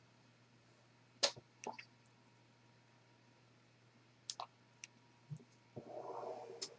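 Sparse light clicks and taps of fingers on a smartphone's touchscreen and body as it is handled, with a short soft rustle near the end.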